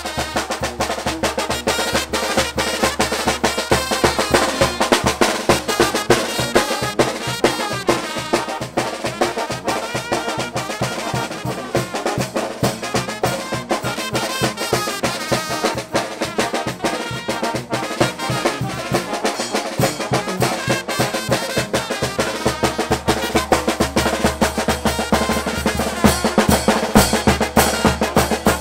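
A small brass-and-drum street band playing: trumpets over a steady beat on a bass drum and snare drums.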